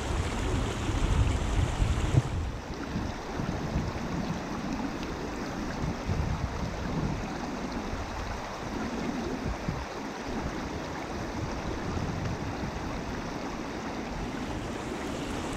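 River water flowing over a shallow gravel riffle, a steady hiss, with wind buffeting the microphone in uneven low rumbles.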